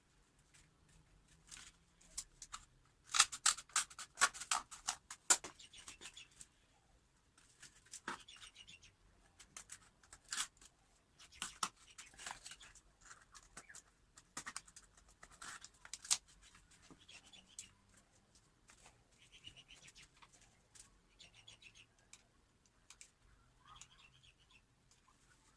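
Cardboard being cut and handled: a run of sharp snips and scratchy strokes, densest about three to six seconds in, then sparser and irregular.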